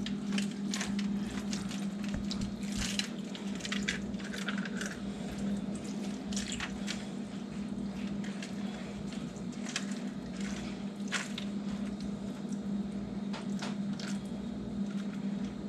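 Thin garlic butter sauce poured over chicken thighs: liquid splashing and dripping with scattered small clinks, over a steady low hum.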